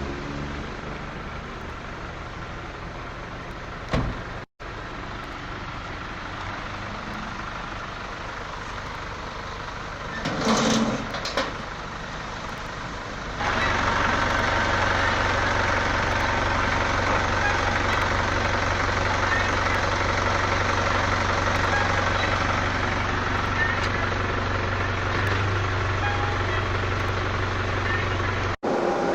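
Steady motor vehicle running noise with a low hum. After a cut about halfway through it becomes louder and fuller. A brief louder sound comes about a third of the way in.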